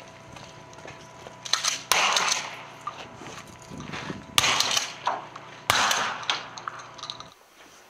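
Three gunshots from a prop gun firing blanks, about two seconds, four and a half seconds and nearly six seconds in, each trailing off over about half a second.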